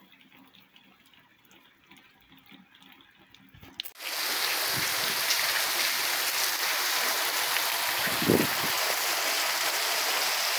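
Heavy rain falling steadily, a loud even hiss that comes in suddenly about four seconds in after a few seconds of faint rain. A brief low thump comes a few seconds later.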